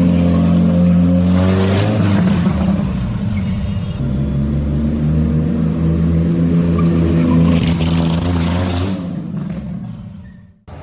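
Engine of a bare-chassis GT40 replica running steadily close by, with a harsh burst of tyre skid on concrete about two seconds in. After a break about four seconds in, the engine is heard again with a second tyre skid near the end, then the sound fades out.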